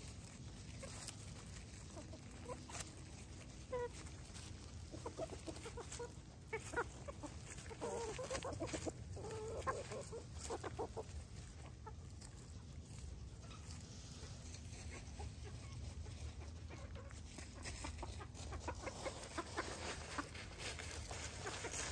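Chickens clucking in short calls, busiest around the middle, with scattered small clicks over a steady low rumble.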